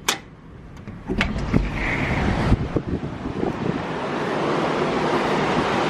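A door latch clicks and the glass balcony door knocks a few times as it opens. Strong tropical-storm wind then rushes in and buffets the microphone over the sound of heavy surf, rising over about two seconds and then holding steady.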